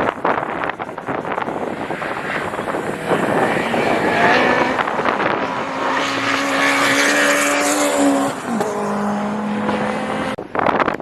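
Ford track car running at speed past the microphone, its engine note steady and then dropping in pitch about eight seconds in, over heavy wind noise on the microphone. The sound cuts off suddenly near the end.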